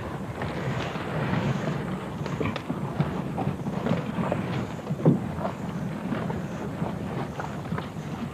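Wind buffeting the microphone, over scattered scrapes and knocks from Komodo dragons jostling and tearing at a carcass, with a louder knock about five seconds in.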